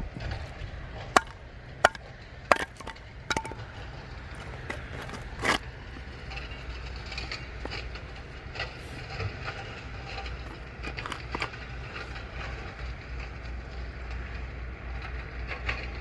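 Wood cracking and snapping in scattered sharp pops, several loud ones in the first few seconds and smaller ones after, over a steady low rumble.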